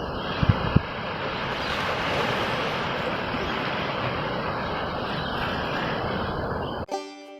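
Wind blowing across the microphone over the rush of the sea, a steady rushing noise with two brief low buffets about half a second in. Banjo music cuts in abruptly near the end.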